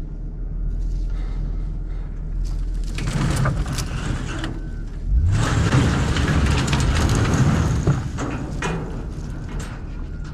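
Vehicle engine running steadily, then revving up about five seconds in for a louder few seconds, with rattles and sharp knocks over it.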